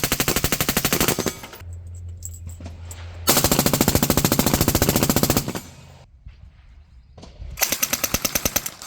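Automatic gunfire in three long bursts of rapid, evenly spaced shots. The first burst stops about a second in, the second runs for a little over two seconds from about three seconds in, and the third starts near the end.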